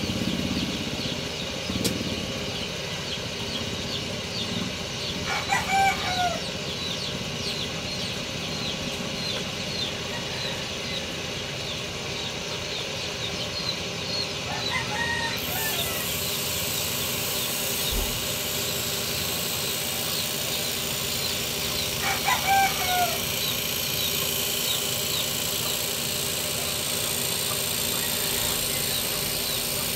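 Roosters crowing three times, about eight seconds apart, each crow about a second long, over a steady background hum.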